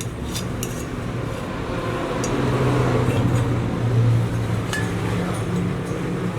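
A few light metallic clinks, as of tools and metal parts being handled, over a steady low drone that swells and eases in the middle.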